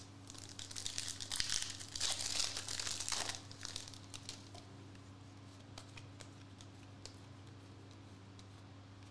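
Foil trading-card pack wrapper crinkling as it is torn open, for about three seconds. After that come a few faint clicks of cards being handled.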